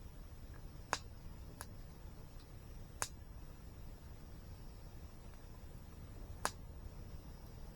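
Campfire burning, with sharp pops from the crackling wood: one about a second in, a fainter one soon after, one about three seconds in and one about six and a half seconds in. Under them runs a steady low rumble.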